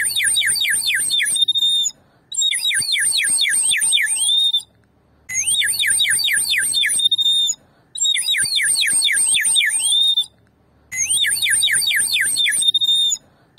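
Terracotta bird whistle warbling in a fast, high trill, five times over, each burst about two seconds long and ending on a short held high note.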